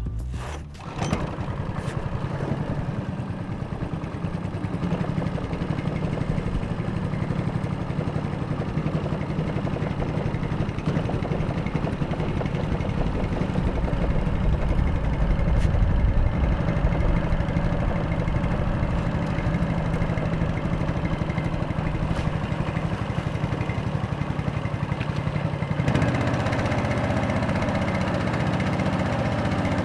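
Mud Buddy longtail mud motor running at speed, pushing a canoe through water only an inch or two deep. It comes up strongly about a second in and settles to a steadier note a few seconds before the end.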